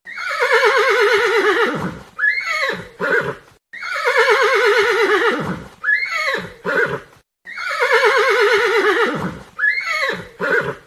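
Horse whinnying: a long quavering call that falls in pitch, followed by a few short calls, heard three times over in the same pattern.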